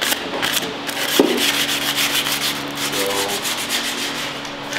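Abrasive rubbed back and forth in quick scratchy strokes over the steel tubing of a go-kart frame, sanding off rust. A single sharp knock comes about a second in.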